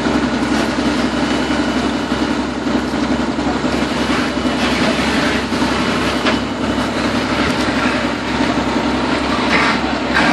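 Fire engine's diesel engine running steadily to drive its pump, which feeds the hose line, with a steady low drone and noisy hiss over it.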